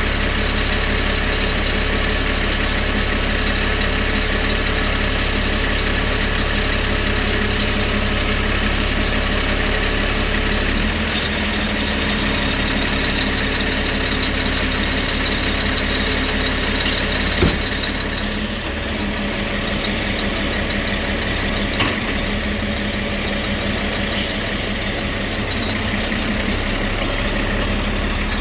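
Heavy truck engine running steadily, its tone dropping slightly about eleven seconds in, with a few sharp clicks over it.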